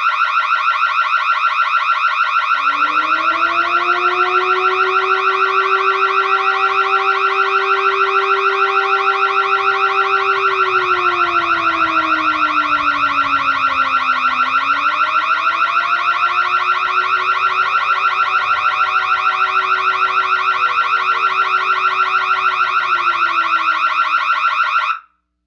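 Electronic burglar alarm sounding: a loud, rapidly pulsing high-pitched tone. About three seconds in, a lower tone joins it, slowly sagging and rising again in pitch. The alarm cuts off abruptly just before the end.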